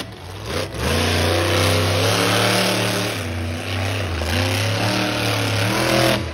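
Monster truck engine revving loudly, its pitch climbing and dropping again and again as the truck is driven hard on the dirt course.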